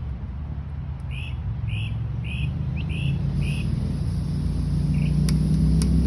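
A low rumble grows steadily louder. Over it, a bird gives a run of six short chirps, about two a second, then one more a little later. A few sharp clicks come near the end.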